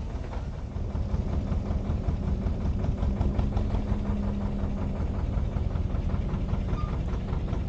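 A narrowboat's inboard diesel engine running under way at low revs, with a steady, even beat.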